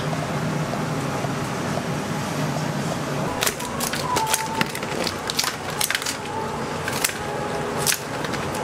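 Kitchen scissors snipping and cracking through the shells of cooked king crab legs, a run of sharp clicks and cracks starting about three and a half seconds in. Before that, only a steady hum.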